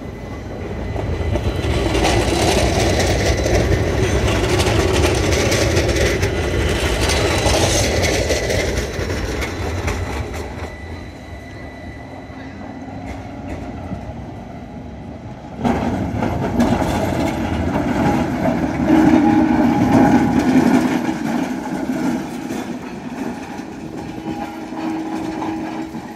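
Vintage electric tram running past on street rails through a junction and curve: a rumble with steel wheels clattering over rail joints and switches. It is louder again about two-thirds of the way through, where a steady motor hum comes in.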